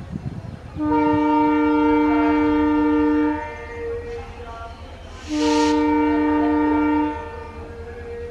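Diesel locomotive horn sounding two long blasts, the first about two and a half seconds, the second about two seconds, over the low rumble of the train running.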